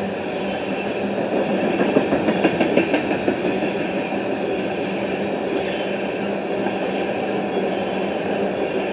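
Railroad tank cars of a freight oil train rolling past close by: a steady rumble of steel wheels on rail with a low hum underneath, and a short run of louder clacks about two seconds in.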